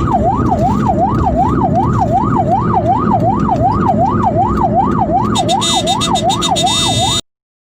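Ambulance siren wailing in a fast up-and-down sweep, about two and a half cycles a second, over loud road and engine rumble. A fast high rattle joins about five seconds in, and the sound cuts off suddenly about seven seconds in.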